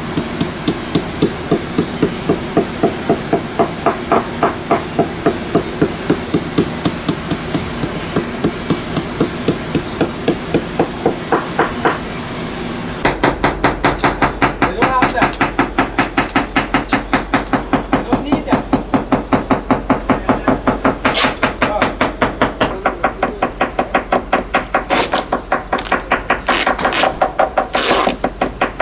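Small hammer tapping rapidly and steadily on the fiberglass hull and deck of a Leopard 45 catamaran: a tap test listening for hollow-sounding spots that could be voids, delamination or dry fiberglass, against the solid thud of well-bonded laminate. The taps come at about four a second, and the tone changes about 13 seconds in as a different spot is tapped.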